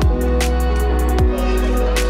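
Background electronic music with a steady beat: heavy bass drum hits and ticking hi-hats under held synth tones.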